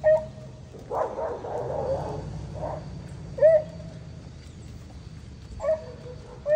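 An animal's short, sharp, pitched calls, four of them spaced a second or more apart, each rising and quickly falling.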